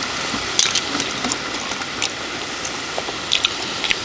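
Clams and their juices sizzling and bubbling on a charcoal grill: a steady hiss with scattered sharp crackles and small clicks.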